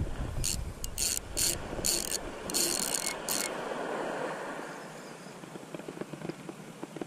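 Daiwa BG2000 spinning reel's drag buzzing in a series of short bursts, about half a dozen in the first three and a half seconds, as a big ray runs and pulls line off against it. The sound then fades to a fainter hiss.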